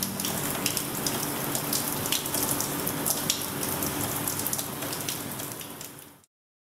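Rain sound effect closing the song: a steady patter of rain with scattered sharp drop clicks, fading out and cutting to silence about six seconds in.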